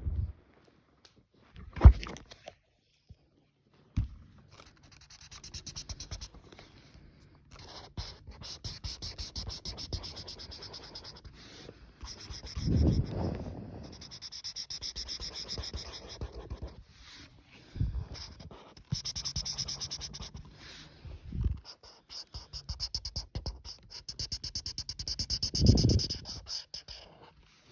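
Drawing tool scratching on paper while colouring in, in runs of rapid back-and-forth strokes with short pauses between. Heavy breaths blow on the microphone as low puffs, loudest about halfway and near the end, and there is a sharp bump about two seconds in.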